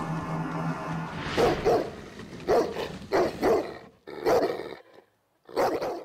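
A dog barking, about seven loud barks in a broken run, as a sound effect after steady intro music fades out about a second in.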